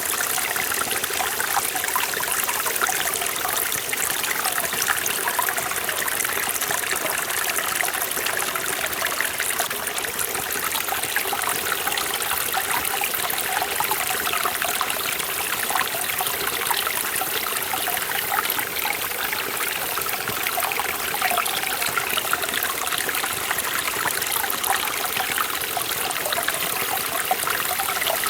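Mountain stream in a forest valley flowing and splashing over rocks, a steady rushing and babbling water sound.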